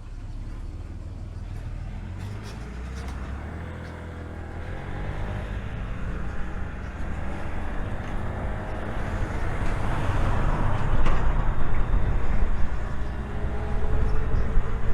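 Wind and road noise rushing over a clip-on microphone while riding in traffic, growing steadily louder as speed picks up. The vehicle's engine and exhaust are barely heard, since the pin mic picks up little of them.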